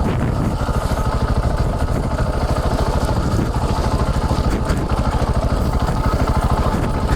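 KTM 690 Enduro's single-cylinder four-stroke LC4 engine running steadily, with a rapid, even pulse of firing strokes.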